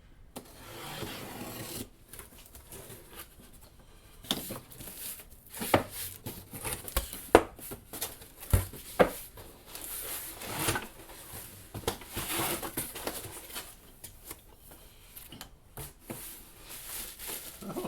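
Cardboard box being opened and packing material rustled and pulled out, with a series of sharp knocks as the parts of a wood-lathe steady rest are handled and set down.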